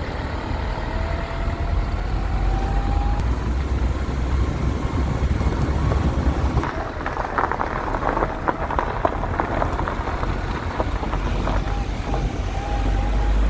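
Renault Master van motorhome driving, with a steady deep engine and road rumble. A thin whine rises slowly in pitch over the first few seconds as the van gathers speed, and a few seconds of rattling and clatter come through in the middle.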